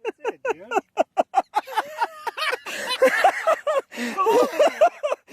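People's voices talking quickly, with no words made out.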